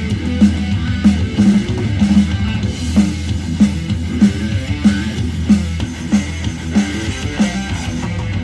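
Rock music with electric guitar and drum kit, a steady beat, played through a portable Bluetooth speaker for a sound test.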